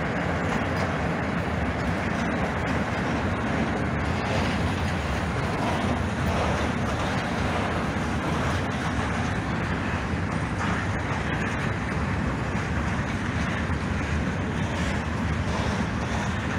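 Freight train of open wagons rolling past behind an electric locomotive: a steady rumble of steel wheels on the rails, with a few faint clicks.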